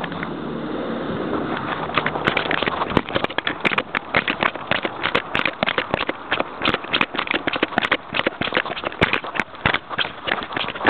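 Jack Russell terrier running through snow with a camera strapped to it: rustling at first, then from about two seconds in a rapid, irregular patter of knocks and crackles from its footfalls and the camera jostling.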